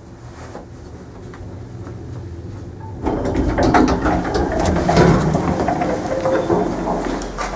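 KMZ passenger lift arriving at a floor: the low hum of the moving car fades as it comes to a stop, then about three seconds in the automatic sliding doors open with a loud rattling clatter.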